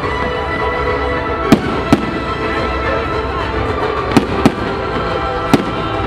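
Fireworks shells bursting in the air with five sharp bangs, in two close pairs and then a single one, over steady background music.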